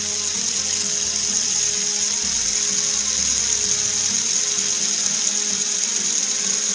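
A fidget spinner spinning close up: a steady hissing whir over a low hum, stopped suddenly near the end.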